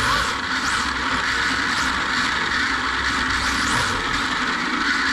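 Onboard sound of a three-wheel RC drift car running on a smooth concrete track. Its Surpass Rocket 13.5-turn brushless motor gives a high whine that rises again and again with the throttle, over a steady rush of tyre and wind noise.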